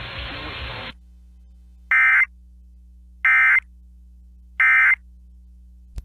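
Emergency Alert System end-of-message signal: three short bursts of warbling SAME digital data tones (the "NNNN" code), about 1.3 seconds apart, which mark the close of the alert. They follow a hiss that cuts off about a second in, and a faint steady hum runs underneath.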